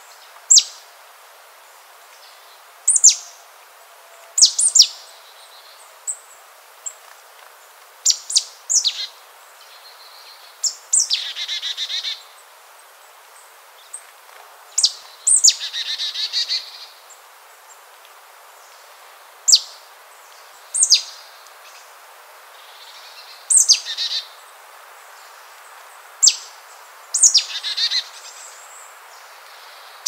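Bird song: sharp, high notes that fall quickly in pitch, one every second or two, mixed with several buzzy trills lasting about a second each.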